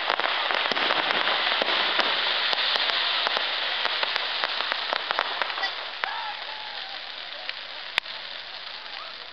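Crackling fireworks: a dense, rapid patter of many small pops that thins out and fades. One sharper, louder pop comes near the end.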